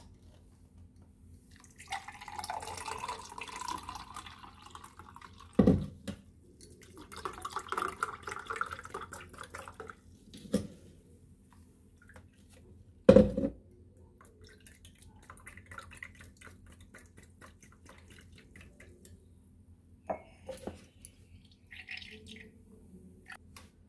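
Blended mint-lemon drink poured from a blender jar through a steel strainer, splashing and trickling in spells. A few sharp knocks, the loudest about thirteen seconds in.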